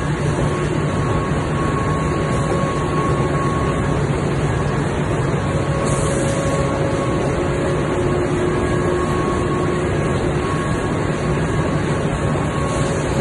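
Steady drone of running factory machinery: a low hum with a few faint, steady whining tones above it.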